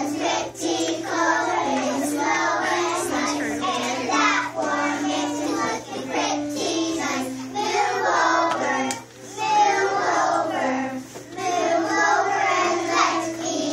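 A kindergarten children's choir singing a song together, with an instrumental accompaniment that holds the tune in steady notes stepping from pitch to pitch.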